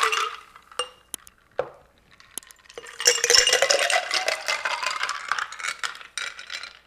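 Ice cubes and orange cocktail poured between a glass mixing glass and a glass mason jar: one pour tails off at the start, a few glass clinks follow, then a second pour of clattering ice and splashing liquid lasts about three seconds with a pitch that dips and rises. It ends with a few more glass knocks.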